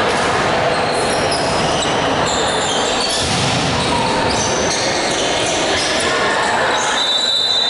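Volleyball-hall din between rallies: voices of players and spectators and a ball bouncing on the court floor, echoing in the big hall. About seven seconds in, a high steady whistle starts, the referee's whistle.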